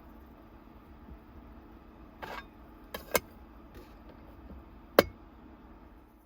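Compact portable cooler running with a steady low hum, while a short rustle about two seconds in and several sharp clicks or knocks break through, the loudest about five seconds in.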